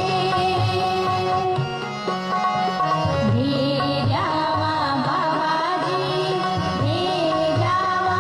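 Indian devotional music: a gliding melody over held instrument tones and a steady low drum beat.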